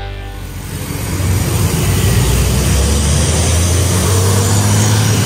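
A large coach's diesel engine running close by as the bus passes at the roadside, over road traffic noise. It grows louder about a second in and then holds steady.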